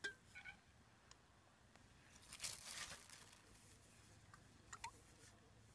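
Faint handling sounds as aluminium drink cans are set on a steel rail with gloved hands: a few small clicks and taps, and a brief rustle about two and a half seconds in.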